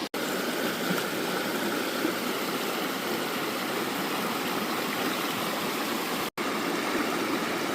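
Stream water running with a steady rush, broken by two momentary dropouts, near the start and about six seconds in.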